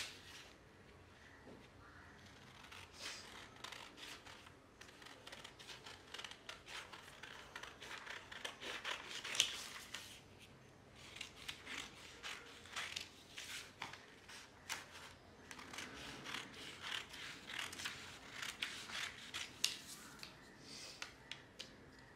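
Scissors cutting through a sheet of pattern paper: a long run of quick snips, broken by a few short pauses as the blade is repositioned along the pattern lines.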